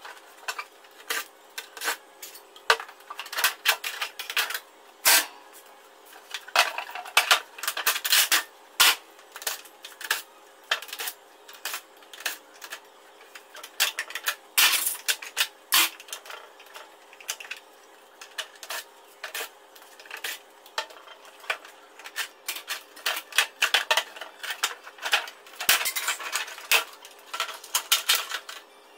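Plastic casing and parts of a Trane wall-mounted air-conditioner indoor unit being handled and pulled apart by hand: irregular clicks, knocks and rattles throughout.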